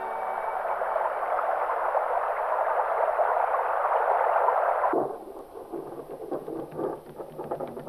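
Sound effect of rushing, bubbling water welling up, growing louder for about five seconds and then cutting off abruptly. After it come quieter scattered crackles and clicks.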